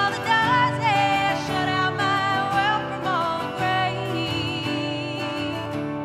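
A woman singing solo over a strummed acoustic guitar, with gliding phrases and a held, wavering note in the second half.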